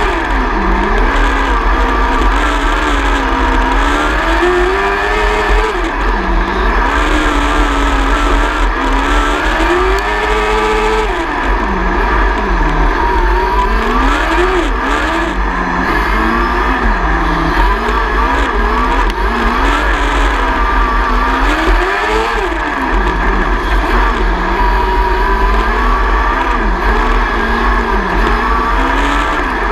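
Onboard sound of a 600 micro sprint car's engine racing on a dirt oval. It revs up along the straights and drops off into the turns, rising and falling again every few seconds lap after lap.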